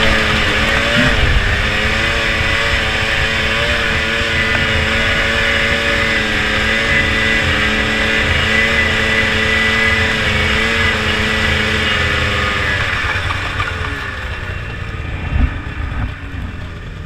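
Ski-Doo 600 RS snowmobile's two-stroke twin engine running under throttle as the sled is driven across grass, its pitch wavering slightly. Near the end the revs fall away as it slows, and there is a single thump.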